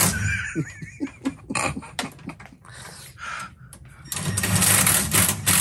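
Clicking, knocking and rattling of hand tools and hardware as a bolt is worked on in a boat's engine bay; about four seconds in, a louder steady mechanical whir starts.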